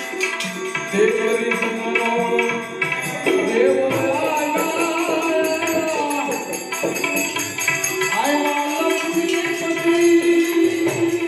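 Devotional bhajan music: a voice singing a gliding melody over held instrumental notes, with jingling hand percussion keeping the beat.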